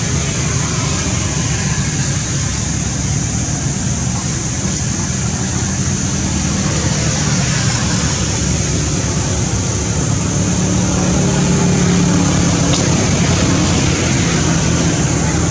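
Steady outdoor background noise: a low rumble under a constant high hiss, with no distinct events.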